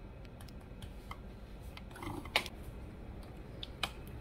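Spoon spreading mayonnaise-based sauce onto toasted burger buns on a ceramic plate: faint scraping with small scattered clicks of the spoon, two sharper clicks a little past halfway and near the end.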